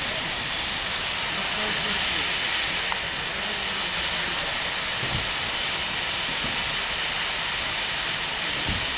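Steam hissing steadily and loudly from a GWR 'Large Prairie' 2-6-2T tank locomotive.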